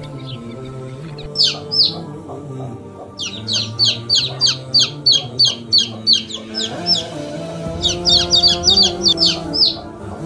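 Young chicks peeping: high, short peeps that slide down in pitch, two at first and then fast runs of about four a second, over soft background music.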